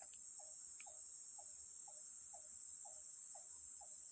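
Tropical rainforest ambience: a steady high-pitched drone of insects, with a short, slightly falling call from an unseen animal repeated evenly about twice a second.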